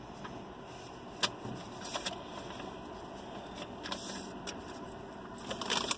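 A few short clicks and light handling noises, the sharpest about a second in and a small cluster near the end, over a steady low background hum inside a parked truck cab.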